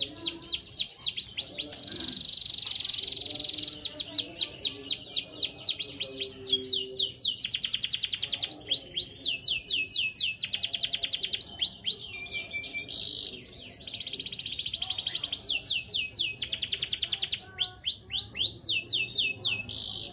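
Domestic canary singing: long rapid trills of quick downward-sweeping notes, alternating with held whistled notes, in a nearly unbroken song.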